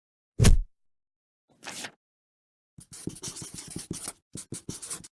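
Sound effects: a heavy thud, a short whoosh, then a fast run of scratchy strokes, about seven or eight a second, with a brief break in the middle.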